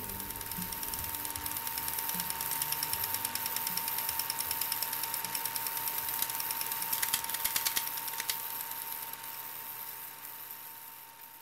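Film projector running: rapid, even clicking of the film advance over a steady tone, fading out near the end.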